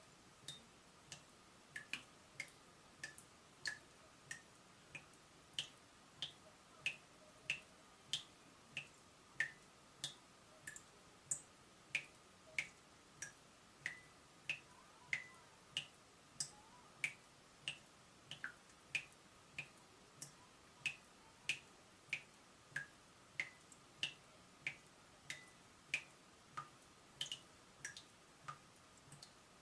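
Water dripping from a leaking tap, about three drops every two seconds. Each drop is a short plop with a brief pitched ring, and the pitch changes slightly from drop to drop.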